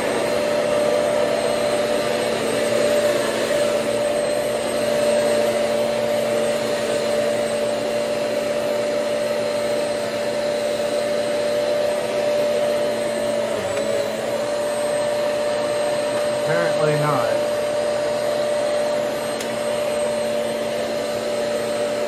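Hoover Swivel XL Pet bagless upright vacuum cleaner running steadily while it is pushed over a rug. Its motor gives a steady whine over the rush of air, with the brushroll turning on a newly fitted good belt.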